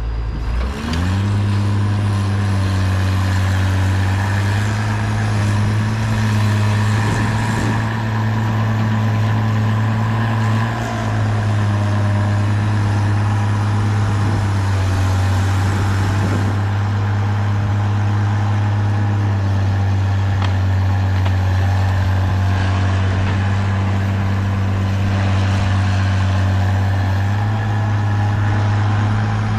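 Heavy diesel engine picking up speed within the first second, then running steadily at a constant speed.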